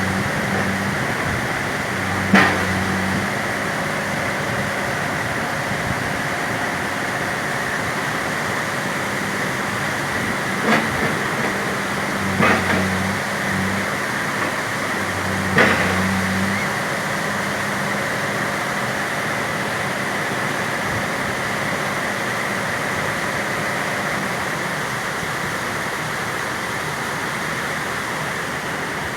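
Backhoe's diesel engine running steadily, its low hum growing stronger in a few spells as it works, with several sharp knocks and cracks.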